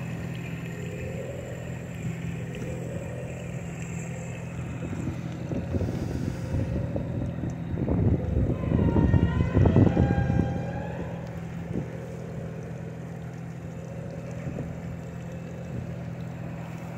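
Small motorboat's engine idling with a steady low hum, with wind and water noise around it. About eight seconds in, a louder rushing surge lasts about three seconds, then fades back.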